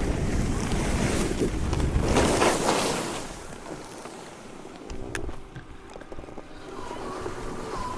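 Skis running over snow with wind rushing on the microphones, rising to a louder scraping surge about two and a half seconds in, then dropping away to quiet. A single click about five seconds in, and a steady tone starts near the end.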